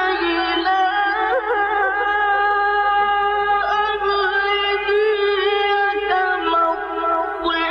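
A single man's voice chanting Quranic recitation in the melodic tajweed style, drawing out a long ornamented note that wavers and glides in pitch with hardly a break.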